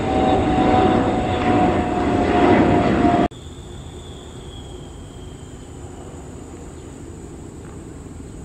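Loud jet noise of a Bombardier CRJ1000's rear-mounted turbofans climbing out after takeoff, with a steady whine over the rush. About three seconds in it cuts off abruptly to a much quieter distant jet engine hum, whose faint high whine slowly falls and fades.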